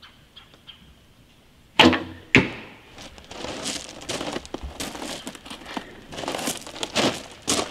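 Sinoart Black Hunter hybrid longbow shot: the string snaps forward on release with a brief low twang, and the arrow strikes the target about half a second later. Irregular rustling and crinkling follow.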